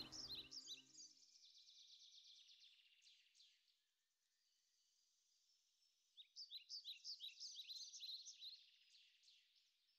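Faint songbird singing: quick runs of high, falling chirps, one at the start and a louder run from about six seconds in. Music fades out in the first second.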